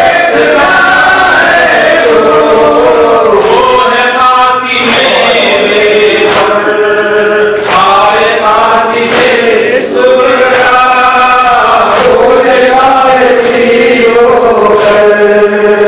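Men's voices chanting a noha, a Muharram lament, together into microphones in a long, melismatic sung line that continues without a break.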